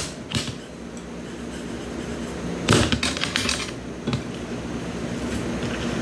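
A few sharp knocks and clinks of a knife and utensils against a cutting board and a bowl during cutlet prep. The loudest comes about two and a half seconds in, followed by a quick run of lighter taps.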